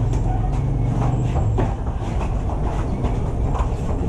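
Grapplers scuffling on foam mats: scattered soft knocks and scuffs of bare feet and bodies. Underneath runs a steady low rumble of background noise.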